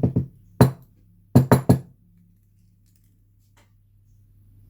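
Sharp metallic knocks and clicks from a brass padlock and its key being worked to free a stuck pin from its chamber: one at the start, another just over half a second in, then three quick ones around a second and a half in.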